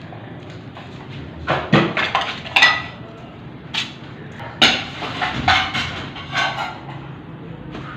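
Dishes and metal pans clinking and knocking as they are picked up and carried, in two short bursts of clatter with one brief ringing clink.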